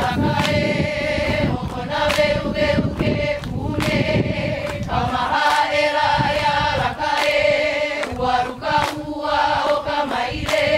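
A group of men and women chanting a Hawaiian oli in unison, voices held on long steady notes, with scattered sharp hand claps.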